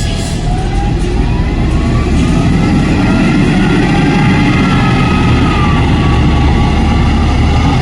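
Heavy machinery running loudly at a concrete batching plant: a steady low engine rumble that swells over the first couple of seconds, with a faint whine rising in pitch.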